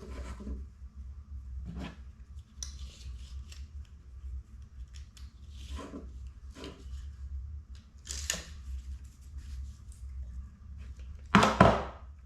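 Scissors cutting elastic shock cord, with a few short snips and handling sounds spread out; the loudest comes near the end.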